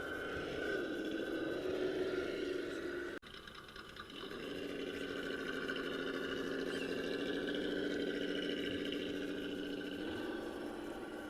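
Electric motor and geartrain of a Traxxas TRX-4 radio-controlled crawler whining under throttle. The whine breaks off abruptly about three seconds in, then comes back and slowly climbs in pitch.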